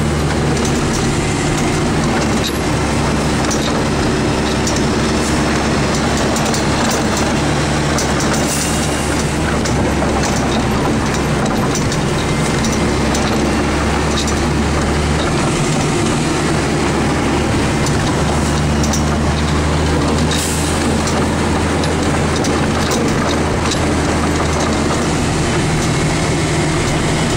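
In-cab sound of a 1991 Ford L9000 diesel plow truck under way: a steady engine drone under a continuous rushing rumble as the plow pushes snow along the road.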